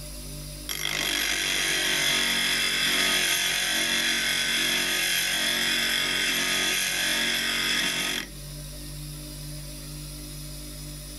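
Steel chisel being ground on the spinning wheel of a NuTools bench grinder: a harsh, hissing grind that starts abruptly about a second in and cuts off suddenly about seven seconds later when the chisel is lifted away. The grinder motor hums steadily under it and on its own afterwards.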